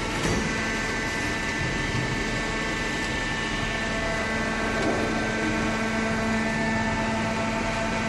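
Paper baler machine running: a steady mechanical hum with constant higher tones that hold throughout.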